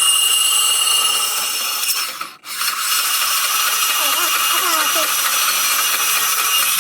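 Portable band saw cutting through steel tubing: a loud, steady, high-pitched machine noise with a faint whine, broken for a moment about two and a half seconds in before it runs on.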